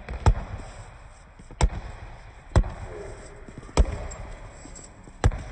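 Basketball dribbled on a gym floor: five separate bounces, about one a second.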